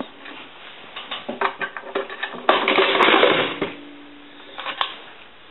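Metal coin box being pulled out of a Western Electric single-slot payphone: a run of metal clicks and knocks, then about a second of loud scraping clatter as it slides out.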